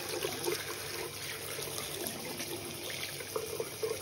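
Tap water running steadily onto a sock held in a sink, trickling and splashing.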